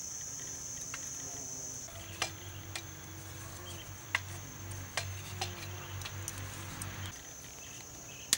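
Insects droning steadily at a high pitch, with a handful of sharp clicks and taps scattered through the middle.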